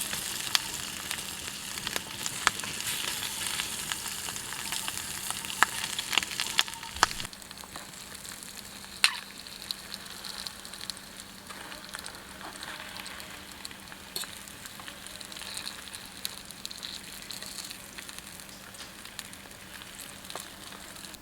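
Food frying over a campfire: a steady sizzle with scattered sharp pops. It is louder for the first seven seconds or so, then softer.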